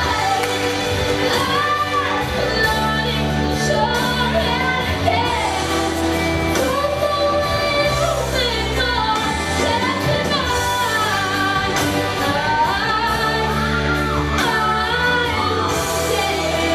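A girl singing solo into a microphone over backing music, her voice rising and falling in phrases above a steady bass accompaniment.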